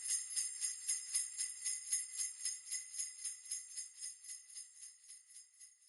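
Sleigh bells shaken in a steady rhythm, about three shakes a second, with a bright high ringing, slowly fading away until they are almost gone at the end.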